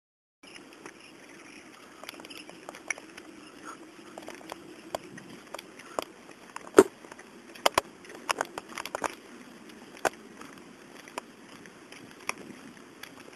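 Handling noise from a handheld camera carried along a paved path: irregular clicks and knocks, about one or two a second, over a low steady hum. It is silent for the first half second, then begins.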